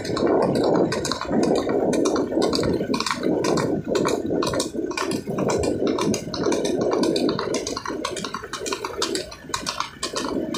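Marwari horse's hooves clattering on an asphalt road at a fast gait, a rapid, uneven run of sharp hoofbeats, over a steady rushing noise.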